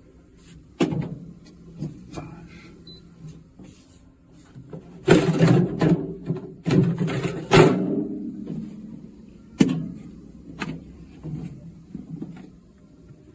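Plastic knocks and clatter from a portable compressor car fridge being handled: its lid and removable basket are moved and set down. The busiest stretch of knocks falls in the middle, over a low steady hum.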